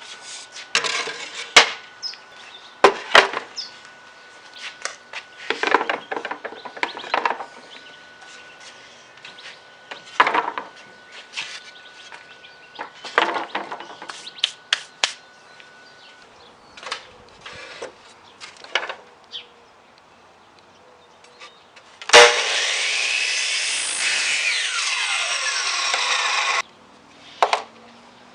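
Woodworking on pallet boards: scattered knocks and short scraping strokes of wood being handled and worked. About three quarters of the way through, a loud steady noise starts abruptly, runs for about four seconds and cuts off, followed by a few more knocks.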